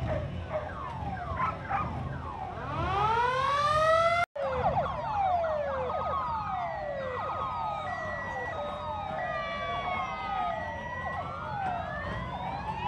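Several emergency-vehicle sirens, among them a fire truck's, sounding at once in overlapping rising and falling wails. The sound cuts out for an instant a little over four seconds in.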